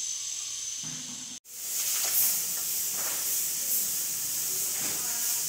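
Steady high-pitched hiss with a few faint ticks, broken by a brief dropout about a second and a half in.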